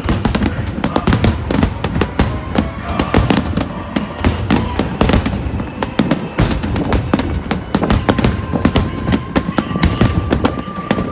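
Aerial fireworks bursting in a dense barrage, several sharp bangs a second over a continuous rumble.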